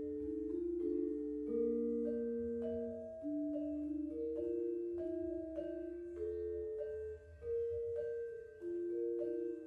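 Background music of slow, overlapping metal notes struck with mallets and left ringing, about one new note a second, over a low hum.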